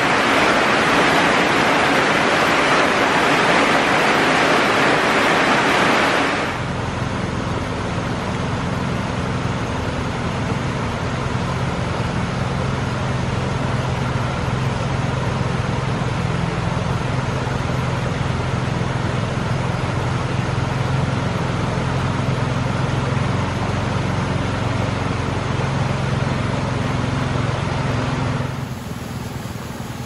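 Steady rain hissing for about the first six seconds, then after an abrupt change a swollen, muddy stream rushing over a fallen log in flood, a low steady rush that drops a little near the end.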